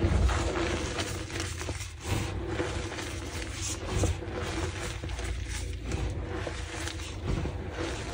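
Slices of gym chalk dusted with Holi powder crunching and crumbling, a dense crackle of many small snaps close together.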